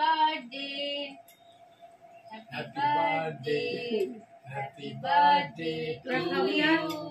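Singing in a high voice: a slow melody of held notes in three short phrases, with pauses between them.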